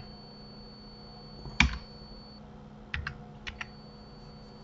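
Computer keyboard keystrokes: a few separate taps, one louder about one and a half seconds in, then two quick pairs near the end, over a faint steady hum.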